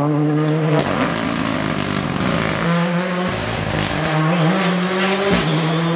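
Rally car engine running hard at high revs, its pitch held nearly steady and dipping briefly three times: about a second in, midway, and near the end.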